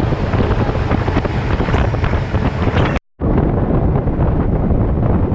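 Heavy wind buffeting the microphone on a moving tour boat, with boat and water noise underneath. The sound drops out for a split second about three seconds in, then the same noise resumes, a little duller.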